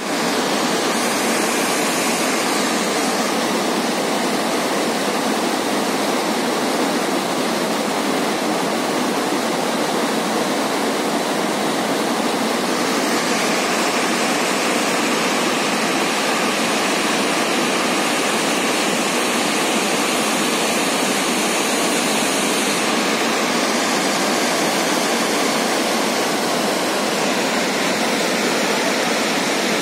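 Glacial meltwater waterfall and the torrent below it rushing over boulders: a steady, loud rush of water.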